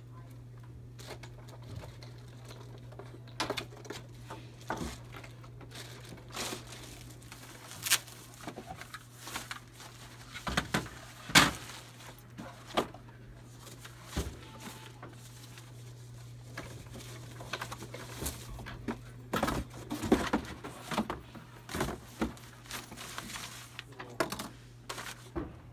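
Packing paper and a plastic bag crinkling and rustling, with scattered knocks and taps of cardboard, as items are unpacked from a cardboard box. A steady low hum runs underneath.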